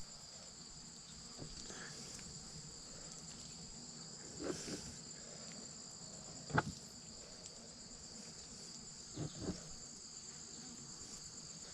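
Insects trilling steadily in two high, continuous pitches, with a few faint brief handling sounds from work on the bird's carcass.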